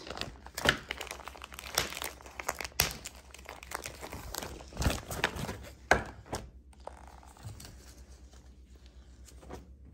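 Clear plastic bag crinkling loudly as it is handled and opened and a cloth vest is pulled out of it; the crinkling dies away after about six and a half seconds.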